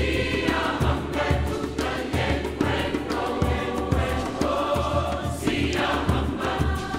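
Background music: a song with singing over a steady drum beat.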